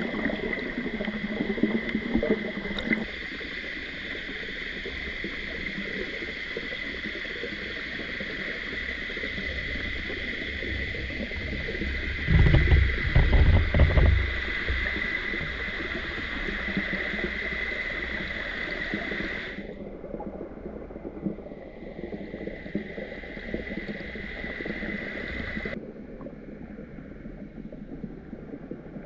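Steady outdoor ambience: a continuous high-pitched drone over a noisy wash, with about two seconds of wind buffeting the microphone about halfway through. The high drone cuts out abruptly in two steps near the end.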